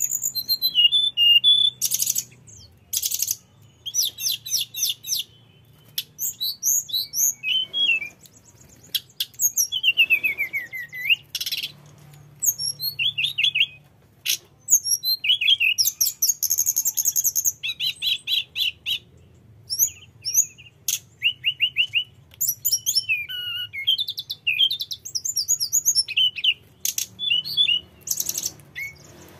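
A caged tledekan gunung, a Cyornis blue flycatcher, singing a long varied song. Fast rolling trills, clear gliding whistles and high chirps follow in quick succession with only short pauses.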